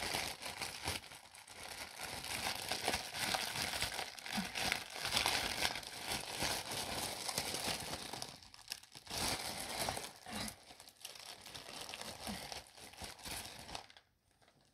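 Plastic wrapping around Mini Brands capsule balls crinkling and rustling as it is handled and pulled at by hand, with a short pause about two thirds of the way through and stopping near the end.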